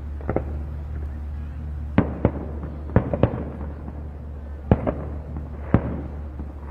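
Aerial fireworks going off in a string of sharp bangs, about one every second or so, some in quick pairs, over a steady low hum.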